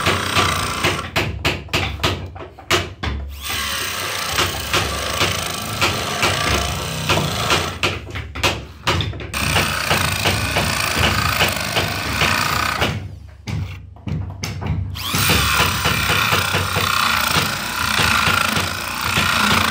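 Handheld electric drill running with its bit and rotary sanding attachment grinding into carved wood. The high grinding noise drops out briefly three times as the tool comes off the wood.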